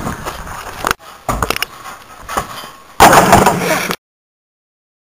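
Camera handling noise: knocks and rubbing on the microphone while the camera is swung about, with a loud rush of noise about three seconds in. The sound then cuts off abruptly.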